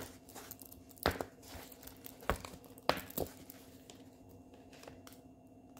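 Plastic-covered diamond painting canvas being handled and turned, giving a handful of short crinkles and crackles in the first three and a half seconds, over a faint steady hum.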